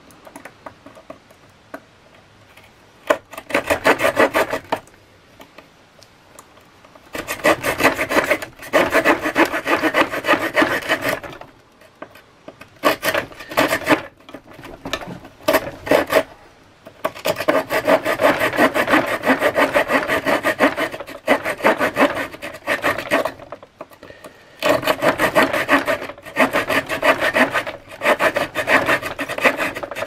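A multi-tool's small folding saw blade, on a SOG Paratool, cutting into wood. It saws in five bouts of rapid back-and-forth strokes, each a few seconds long, with short pauses between them.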